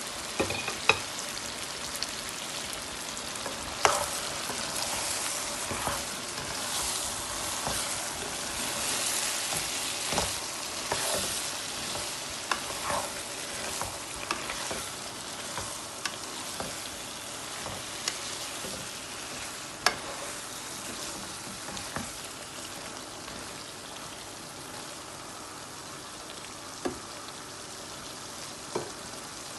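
Freshly added ridge gourd slices frying in hot oil and onion-tomato masala, a steady sizzle that grows quieter in the second half, with a spatula stirring and now and then knocking sharply against the pan.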